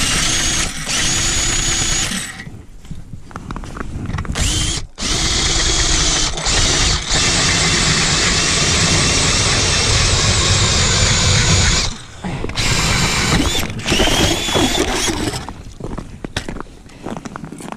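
Makita cordless drill spinning an ice-auger blade, boring a fishing hole through lake ice: a loud motor whine with the blade grinding through ice, in several runs broken by short pauses, the longest lasting about seven seconds. It ends with quieter scraping as the auger is worked out of the slushy hole.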